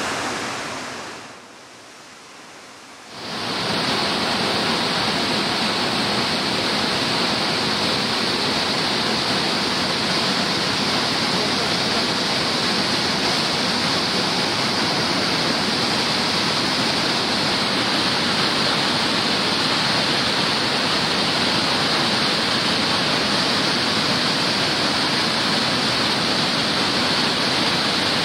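Loud, steady rush of white water from a mountain stream cascading over boulders. It dips briefly and comes back about three seconds in.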